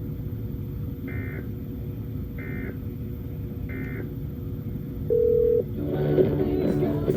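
Emergency Alert System end-of-message signal: three short warbling digital data bursts, a little over a second apart, over a steady broadcast hum and hiss. About five seconds in comes a single loud half-second low beep, then a jumble of broadcast audio.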